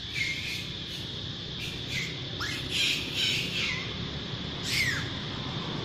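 Infant long-tailed macaque crying: a string of short, high-pitched squeals, several sliding down in pitch, coming in clusters with the loudest run around the middle and one more near the end.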